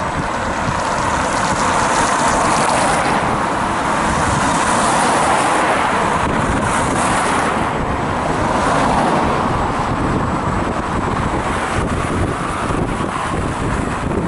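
Wind buffeting the microphone during a ride on an electric unicycle, a steady rushing noise with gusty low rumble, over road and traffic noise that swells a few times.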